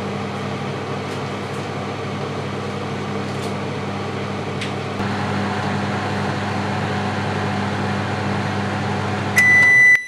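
Microwave oven running a heating cycle, a steady hum. Near the end its loud, high beep sounds as the cycle finishes.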